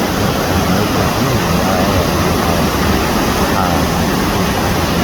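Waterfall and creek rapids rushing, a very loud steady roar of falling water with no let-up.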